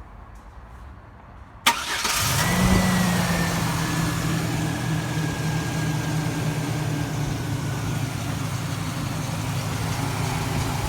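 A sharp click about a second and a half in, then the 2004 Chevy Silverado's 4.3 L V6 cranks briefly, catches and settles into a steady idle. It starts because the starter relay has been grounded by hand with a jumper wire, the ground the owner found the PCM was failing to supply in this intermittent no-crank fault.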